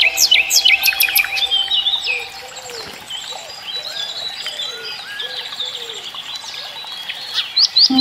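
Songbirds chirping and singing, many quick rising and falling notes overlapping, busiest in the first two seconds and sparser after. Soft music with held notes sits underneath at the start and fades out about two seconds in.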